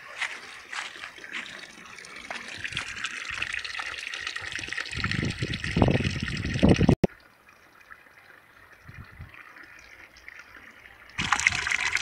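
Spring water pouring from a black plastic pipe into a shallow stony pool, a steady splashing trickle. A low rumble builds with it before the sound cuts off abruptly about seven seconds in. It stays faint, then returns louder and closer near the end.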